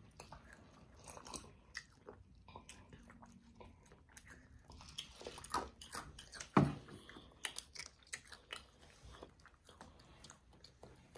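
Close-up mouth sounds of children chewing and biting fried food, French fries and chicken bites, with small wet clicks and smacks throughout and one louder thump about six and a half seconds in.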